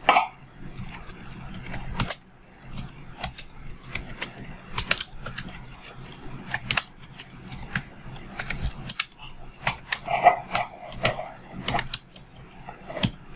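Computer keyboard typing: a run of irregular key clicks, coming in quick bursts with short pauses between them.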